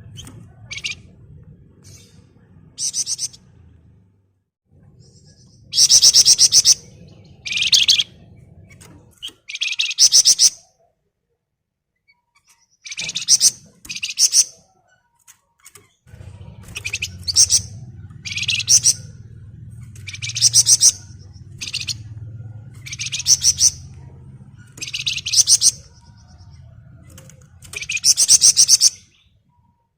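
Javan fulvetta (wergan jawa) singing its dense rattling 'ngebren' song: a series of short, loud, high trilled bursts about every one to two seconds. A low hum runs underneath for much of it.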